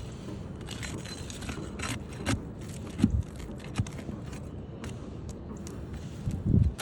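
Scraping, clicks and a few dull knocks of hand work on an asphalt shingle roof as a damaged shingle is pried loose and removed, the loudest knocks about three and six and a half seconds in.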